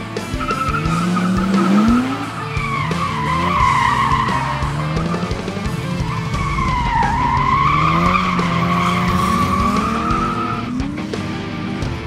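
Drift car's tyres squealing in one long wavering screech that dips in pitch about seven seconds in and stops near the end, while the engine's revs rise and fall under throttle.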